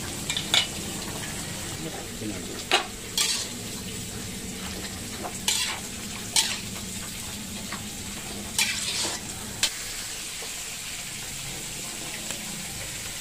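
Chicken liver and gizzard adobo cooking in its sauce in a pan under a glass lid, giving a steady sizzle, with several sharp clinks spread through it.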